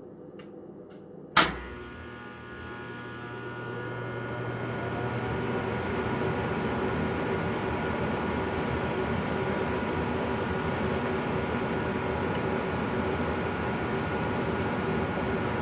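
Miller E3 electric furnace starting up: a sharp relay click, then a low buzz and the blower coming up to speed into a steady run with rushing air and a hum.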